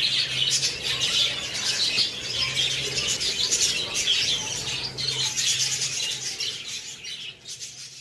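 A flock of budgerigars chattering and chirping continuously, fading out near the end.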